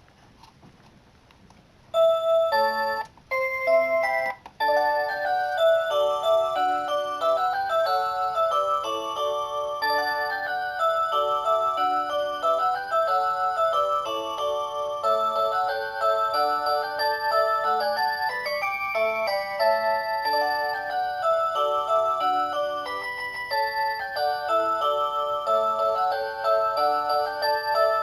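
Alarm clock's built-in electronic melody playing a Christmas song in several voices of clean chime-like tones. It starts about two seconds in, cuts out briefly twice, then plays on steadily.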